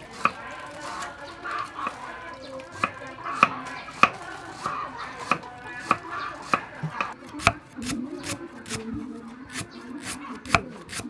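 Cleaver chopping lemongrass on a wooden cutting board: sharp, irregular knocks that come faster in the second half.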